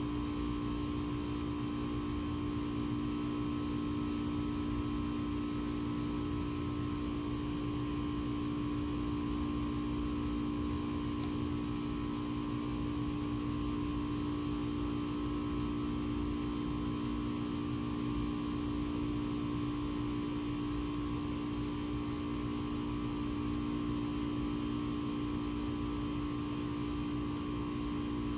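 Steady low electrical hum at an even level, with a few faint ticks.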